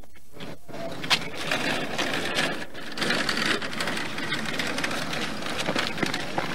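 Empty wheelchair rolling across rough asphalt, a clattering rattle full of small clicks that starts about a second in and grows louder a few seconds later.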